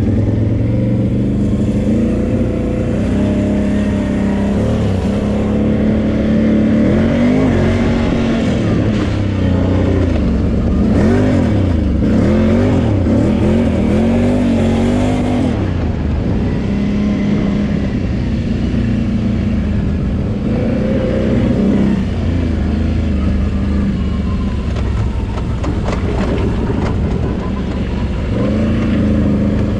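Can-Am Renegade 800 quad's V-twin engine running under way, revving up and down repeatedly through the middle stretch and holding steadier at other times.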